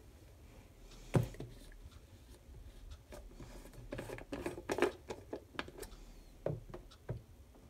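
Pink plastic yogurt-maker container and lid being handled: a sharp knock about a second in, then a run of small clicks and taps, and two more knocks near the end.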